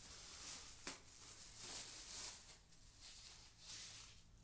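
Faint rustling and handling of cardboard packaging during an unboxing, with one sharp click about a second in.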